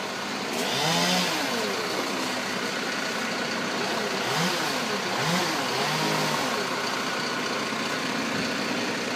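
Chainsaw running, its engine revving up and down repeatedly as it cuts, over a steady engine drone.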